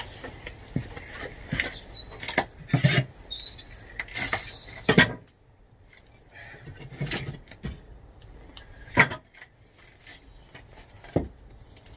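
Scattered sharp cracks and knocks of wood, the loudest about five and nine seconds in, with birds chirping in the first few seconds.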